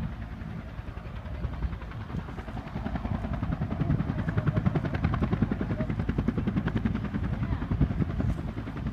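Cobra attack helicopter's main rotor beating in a fast, even rhythm over a low engine rumble as it flies past, growing louder about three seconds in.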